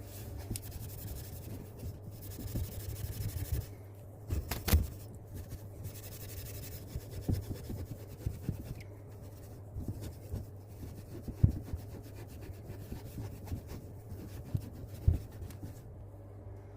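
Wire wool rubbing and scrubbing along a copper pipe to clean and smooth it for a compression fitting. The rubbing is heaviest in the first few seconds, with scattered sharp knocks later and a steady low hum underneath.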